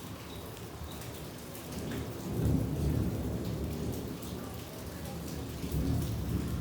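Steady rain with drips, and a low rumble of thunder that builds about two seconds in and rolls on through the rest.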